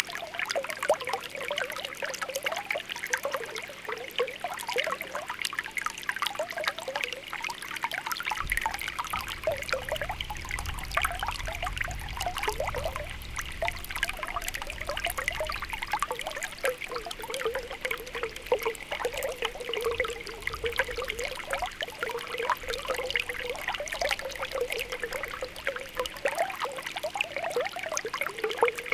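Spring water welling up from the ground, bubbling with continual small pops and a steady trickle. A low rumble sits under it for several seconds near the middle.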